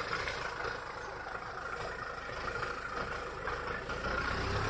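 Kia Sorento SUV's engine running at low speed as it crawls through a muddy puddle, its low rumble growing louder near the end as it comes close.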